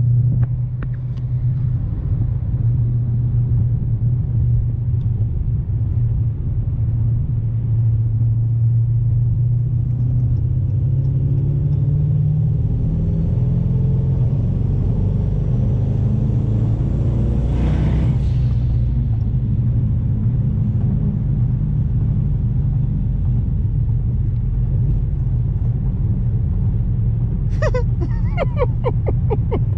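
Twin-turbo Dodge Challenger Hellcat V8 heard from inside the cabin, droning steadily at cruise. It pulls up through the gears from about ten seconds in, the engine note climbing with a faint rising whistle, and ends in a brief rushing sound about eighteen seconds in before settling back to a steady drone.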